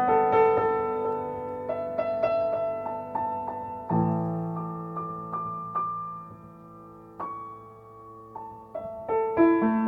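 Solo piano playing slow, gentle music tuned to C=528 Hz: a low chord rings under single melody notes, the playing grows softer in the middle and picks up again with a repeated figure near the end.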